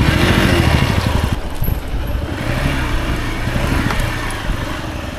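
Motorcycle engine running under load with two riders aboard on a rough dirt track, its revs rising near the start and then rising and falling.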